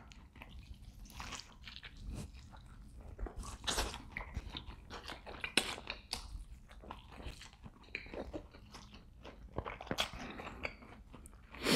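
A man biting and chewing mouthfuls of rotisserie chicken, pulling the meat off with his teeth: irregular soft clicks, smacks and crunches, picked up close by a clip-on microphone.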